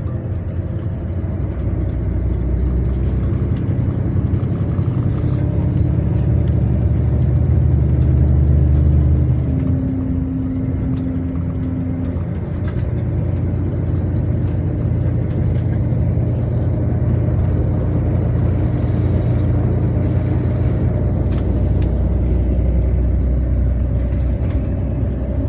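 A motor vehicle's engine running. It grows louder over the first eight or nine seconds, eases off about nine and a half seconds in, then holds steady.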